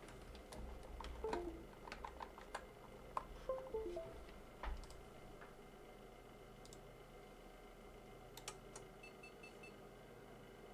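Computer keyboard and mouse clicks, a dozen or so sharp taps in the first half, with a few short pitched blips among them. Near the end come four quick high-pitched beeps.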